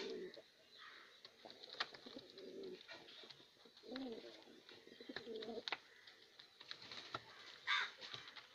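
Domestic pigeons cooing: about four warbling coos in the first two-thirds, with a few sharp clicks between them and a short higher-pitched sound near the end.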